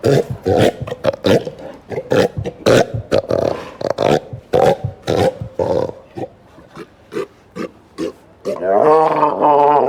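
Sea lions barking: a run of short, sharp barks in quick succession, thinning out midway, then a longer drawn-out call with a wavering pitch near the end.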